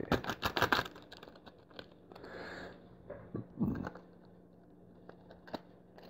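Stiff clear plastic blister packaging of a padlock crackling and crunching as it is handled and pried apart: a cluster of sharp crackles in the first second, a softer scrape about two seconds in, and a dull knock a little after three and a half seconds.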